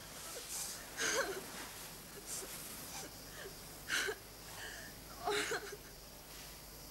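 A young man crying, with about five short, breathy sobs at irregular intervals, his face buried in a cloth.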